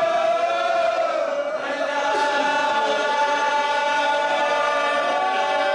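A group of men chanting a Urdu marsiya (elegy) in chorus, a lead reciter with backing voices, holding long drawn-out notes without instruments.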